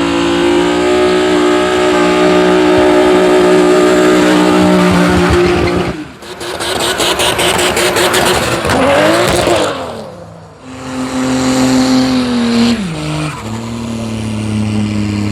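Car engine held at high revs during a burnout, with tyres screeching. Partway through, the steady engine note gives way to a harsh stretch of rapid pulsing and tyre noise. The engine then revs again, drops in pitch and holds at a lower speed.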